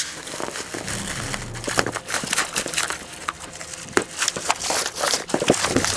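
Bubble wrap and plastic packaging being pulled and crumpled by hand: a crinkling with many small, sharp crackles.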